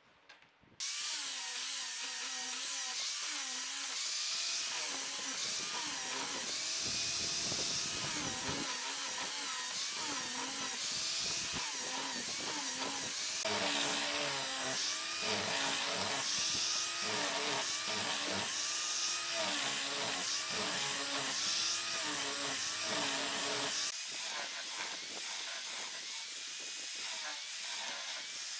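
Angle grinder fitted with a sanding disc, running and sanding thin wooden strips. It starts suddenly about a second in, and its motor pitch dips and recovers over and over as the disc is pressed into the wood and eased off.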